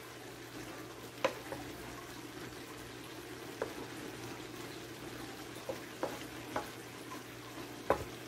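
Wooden spoon stirring ground venison and diced vegetables in a nonstick frying pan over a steady sizzle, with a handful of sharp knocks of the spoon against the pan, the loudest near the end.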